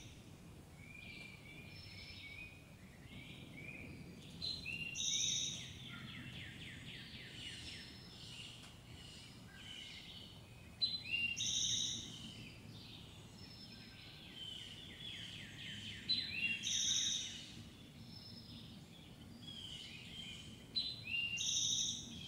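Outdoor birdsong: several songbirds singing, one repeating a short bright phrase every five or six seconds, with rapid trills in between, over faint steady background noise.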